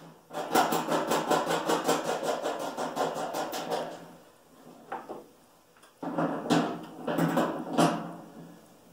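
A hex nut being tightened with a hand tool onto a pivot bolt through a galvanized sheet-metal treadle feeder. A fast, even run of metallic clicks lasts about four seconds; after a pause come a few louder clattering strokes.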